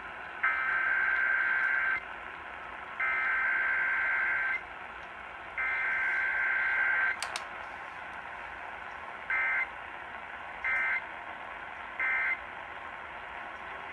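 Emergency Alert System SAME digital data bursts sent over a radio broadcast. Three long bursts of two-tone warbling data carry the test header. A click follows, then three short bursts that mark the end of the message, all over steady background hiss.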